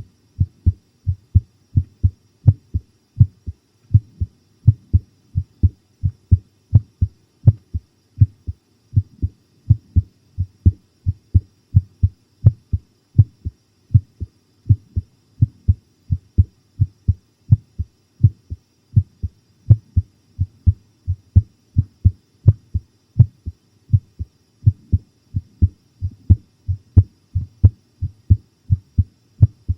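A human heartbeat recorded close up: a steady, regular train of deep lub-dub double thumps. The heart is pounding from fright.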